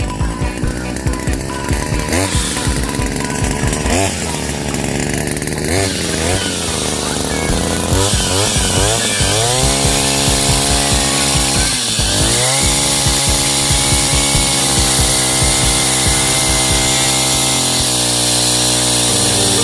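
Two-stroke brush cutter engine driving a chainsaw attachment, revved up about eight seconds in, dropping briefly near the middle and then held at high speed.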